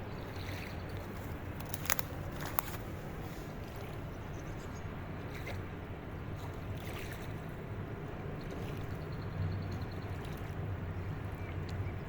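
Steady low drone of a river boat's engine, with two sharp clicks about two seconds in.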